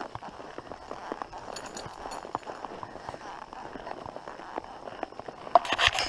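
Horse walking on a dirt forest trail: irregular soft hoof steps and small knocks and rustles from tack and brushing leaves, with a louder brief noise about five and a half seconds in.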